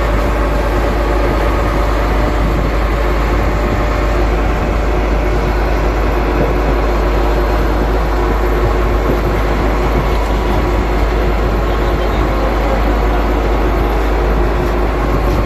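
Fishing boat's engine running steadily, a loud low hum with no change in pace.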